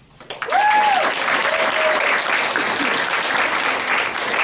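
An audience applauding loudly. The clapping starts suddenly, and a couple of whooping cheers come in the first two seconds.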